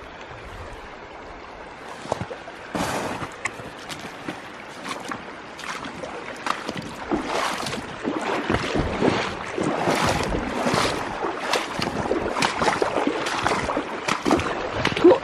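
A person wading across a small creek on foot: irregular splashing steps in the running water, growing busier and louder about halfway through.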